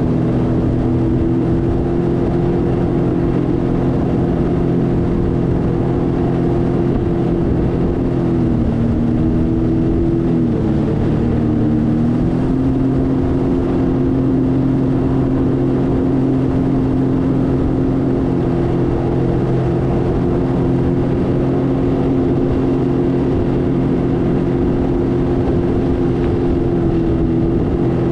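Sea-Doo personal watercraft engine running steadily at cruising speed, with a constant rush of wind and water. The engine note dips briefly twice, about nine and eleven seconds in, then holds steady again.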